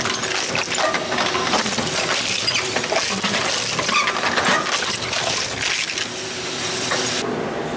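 Industrial dual-shaft hard drive shredder's rotary cutters chewing through hard drives: dense crunching and clattering of metal, with many sharp clinks of fragments. The high clatter stops abruptly near the end, leaving a lower machine hum.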